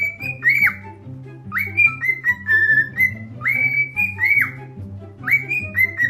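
Cockatiel whistling a short tune, clear notes that slide up and hold, with the phrase repeated over and over. Background music with a steady bass line plays underneath.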